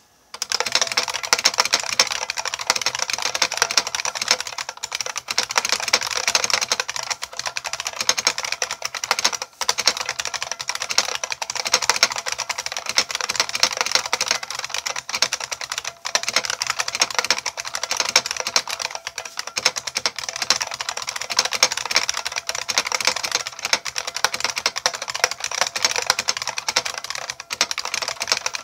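Fast, continuous typing on a 1990 IBM Model M buckling-spring mechanical keyboard: a dense stream of sharp key clicks, at roughly 120 words per minute, starting about half a second in.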